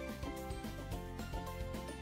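Background music, a melody of short notes changing several times a second over a steady low bass.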